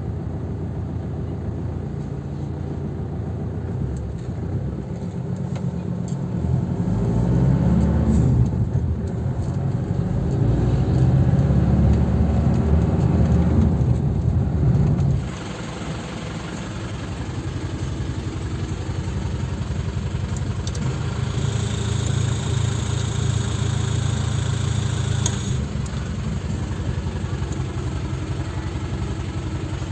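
Isuzu Panther diesel engine running on the move: its note rises under throttle about a quarter of the way in, rises again and holds for several seconds, then falls away suddenly about halfway through and runs on steadily at a lower pitch. The engine is one that runs intermittently smooth or rough, a fault not yet found.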